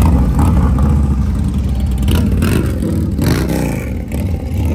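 Motorcycle engines running loudly, one of them revving up and dropping back down a little past the middle.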